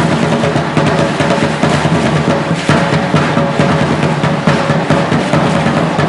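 Rhythmic dance percussion: drums with the dense clatter of shell rattles tied to the dancers' ankles, shaking in time with their steps.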